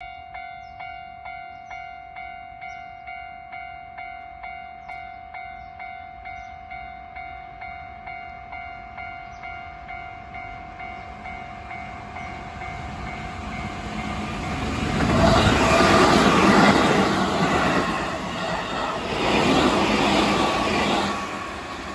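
Japanese level-crossing warning bell ringing steadily at about two strokes a second. Then a Keihan 2200 series train comes closer and passes close by, its wheels running loudly on the rails and drowning out the bell, loudest in two swells over the last seven seconds.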